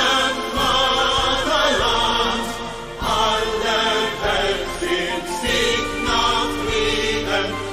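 Choral background music: a choir singing long held notes in slow phrases.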